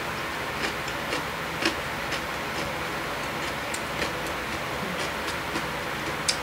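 Close-miked eating: irregular, sharp, wet mouth clicks and smacks of chewing, about two a second, with a louder click near the end as chopsticks pick food from the pot, over a steady background hiss.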